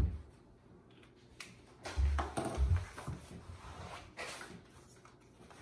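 Handling noises of a person settling on a seat and taking up a book: a short knock at the start, dull thumps with rustling about two seconds in, and a brief paper rustle a little after four seconds.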